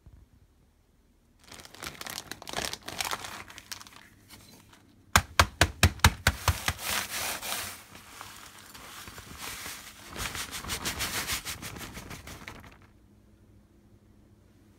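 Clear plastic bag of crushed biscuit crumbs crinkling as it is worked and handled, with a quick run of about nine sharp knocks about five seconds in.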